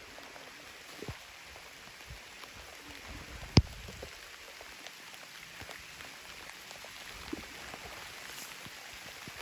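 Steady water-like hiss with scattered light ticks, and one sharp click about three and a half seconds in.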